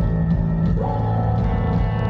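Rock music with electric guitar, played loud at a sound check; a group of notes slides upward in pitch about three quarters of a second in.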